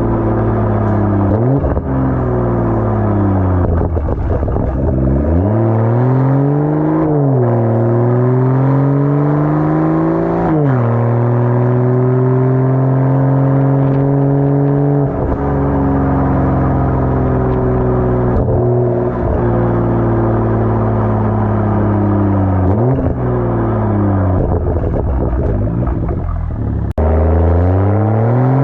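BMW M240i's 3.0-litre turbocharged straight-six running through a muffler-deleted exhaust with no resonator, under way. Its pitch climbs and falls several times as the car accelerates, drops sharply about ten seconds in and again near the end, and holds a steady drone through the middle while cruising.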